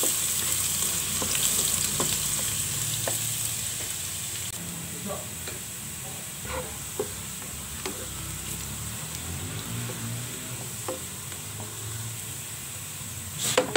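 Minced garlic sizzling in hot oil in a non-stick pan as it fries toward golden brown, with a spatula tapping and scraping the pan now and then. The sizzle is loudest in the first few seconds, then settles lower.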